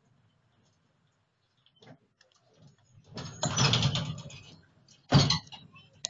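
Konstal 105Na tram's doors working at a stop: a rattling clatter about three seconds in, then a single sharp bang a second and a half later.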